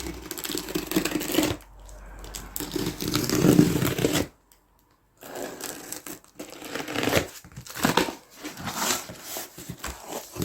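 Cardboard box and packaging being torn open and handled, with irregular tearing, rustling and scraping. The sound drops out briefly about four seconds in.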